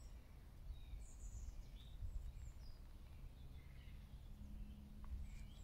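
Faint woodland birds giving short, scattered chirps over a low background rumble.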